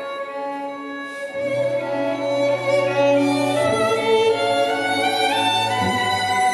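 Recorded classical string music played through Focal Sopra N°1 hi-fi speakers: a violin melody over held string notes, with a low cello line coming in about a second and a half in.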